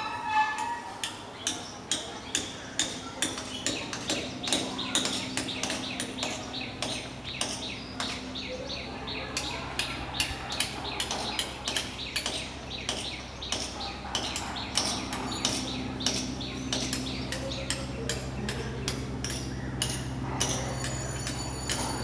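Flameback woodpecker pecking at a coconut palm trunk: a long series of sharp, irregular taps, a few a second, coming thicker through the middle.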